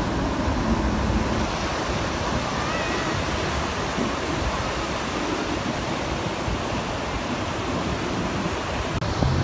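Ocean surf breaking and washing up a sandy beach, a steady rush of noise.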